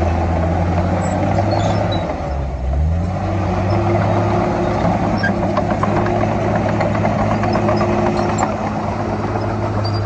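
Komatsu D51PX crawler dozer's diesel engine running steadily. Its pitch dips about two seconds in, then climbs back. Faint clinks and squeaks sound over it.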